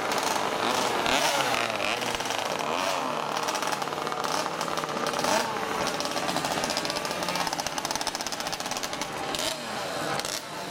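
50cc two-stroke racing motorcycles passing at high revs, several engines overlapping, their buzzing pitch rising and falling as the riders brake, change gear and accelerate out of the corner.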